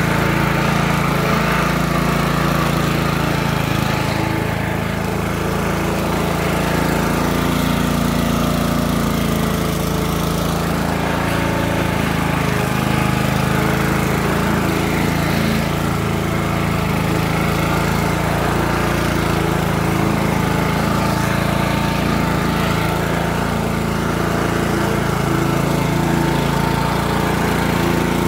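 Walk-behind petrol lawn mower engine running steadily while cutting grass.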